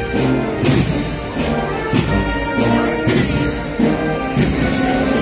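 A Holy Week procession band (banda de música) playing a slow march: brass and woodwinds carrying the melody over a regular drum beat with cymbal strokes about twice a second.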